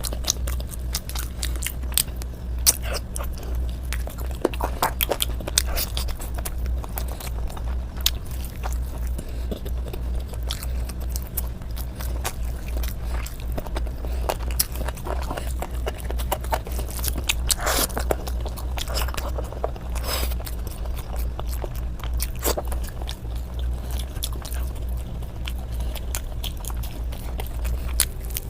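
A person eating close to the microphone: irregular wet chewing, biting and crunchy clicks of mouthfuls of food, with a steady low hum underneath.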